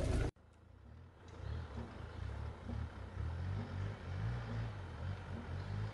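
Hyundai Terracan SUV's engine working as it climbs a steep grassy dirt track, heard as a faint, low rumble that rises and falls, starting about a second in.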